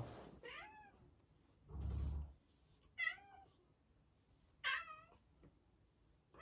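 Domestic cat shut in a plastic pet carrier meowing three times, with pauses of a second or two between the calls. A dull low bump about two seconds in.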